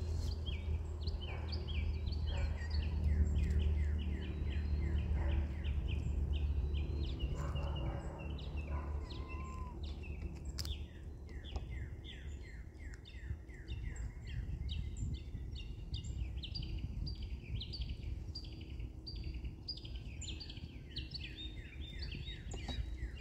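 Small birds chirping: a continuous run of quick, short, falling notes, several a second, over a low steady rumble.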